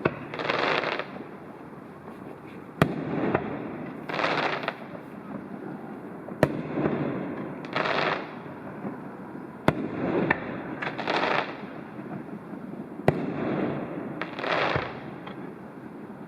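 Fireworks display: sharp bangs about every three and a half seconds, each followed about a second and a half later by a longer rushing, crackling burst.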